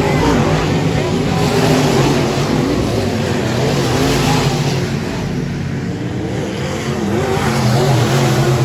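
Several dirt-track race car engines running around the oval, their pitches wavering up and down as the cars lap. Near the end one car passes close and the engine noise swells.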